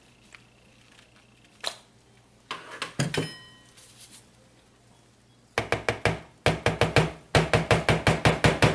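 Metal head of a stick blender knocked against a plastic soap tub, a fast run of sharp taps about five a second over the last three seconds, to shake trapped soap batter out of the blade guard. Earlier, a few single knocks and a brief metallic clatter.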